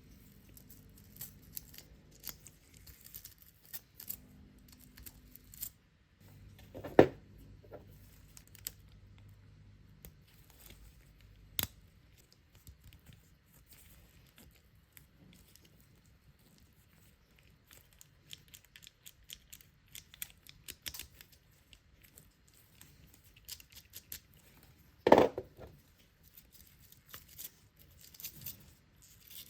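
Small plastic parts being handled as a Braun Silk-épil 9 Flex epilator head is cleaned: a brush scratching over its gears with light clicks and taps. There are two louder knocks, about seven seconds in and near the end, and a sharp click around twelve seconds in.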